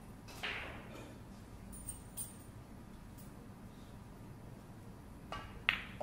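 A pool shot: the cue tip strikes the cue ball, and under half a second later the cue ball hits the object ball with a sharp click of ball on ball, the loudest sound. A softer knock and a couple of faint ticks come before it.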